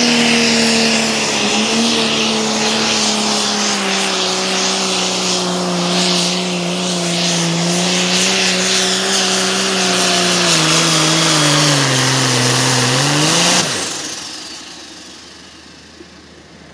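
Turbocharged diesel engine of a Hot Farm class pulling tractor running at full throttle under load, with a high turbo whine over it. Engine speed sags near the end, then the engine shuts off abruptly and the turbo whine winds down in pitch.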